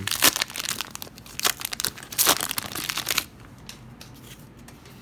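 Plastic wrapper of a pack of football trading cards being torn open and crinkled: a run of crackling rips for about three seconds, then a few faint ticks of handling.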